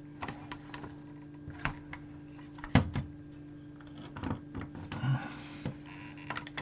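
Scattered light clicks and knocks of small parts and wiring being handled on a workbench, with one sharper knock a little under three seconds in, over a steady low hum.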